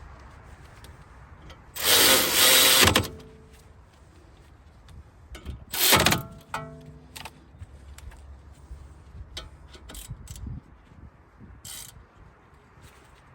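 A power tool runs in a burst of about a second, then a second, shorter burst, driving in the front brake caliper bolts; light metallic clicks and taps follow as the parts are handled.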